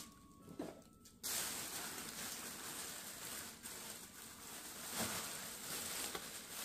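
Thin white plastic bag rustling and crinkling as hands dig into it and pull items out, starting about a second in and going on unevenly.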